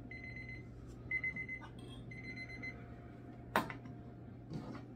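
Digital kitchen timer beeping in three quick runs of rapid beeps at one steady high pitch, marking the end of a 30-second wait between spoonfuls. A sharp click follows as the timer's button is pressed, then a second, softer click.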